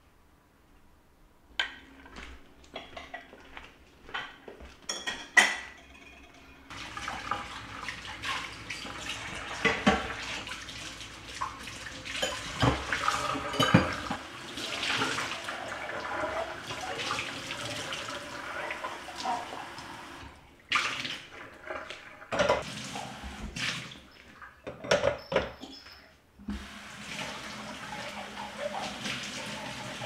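Kitchen tap running into a stainless steel sink while glasses are washed by hand, with glass clinking and knocking. The water stops about twenty seconds in, leaving a few sharp clinks and knocks, then runs again near the end.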